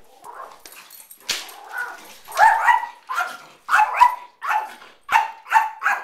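Small dog barking at a glass door in a rapid series of short barks, about two a second, starting about two seconds in after some quieter sounds.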